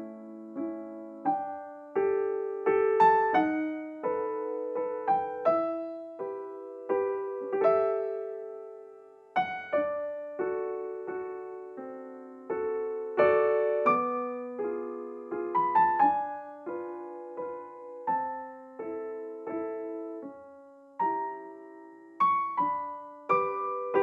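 Background piano music: a slow, gentle run of single notes and chords, each struck and left to die away.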